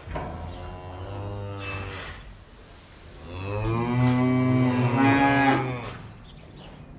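A cow mooing twice in a barn: a first moo lasting about two seconds, then a louder, longer moo starting about three seconds in.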